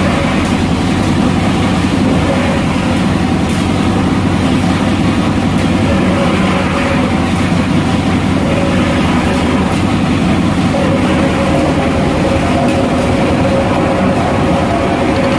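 Fishing boat's engine running steadily at an even speed, with a rapid low pulsing.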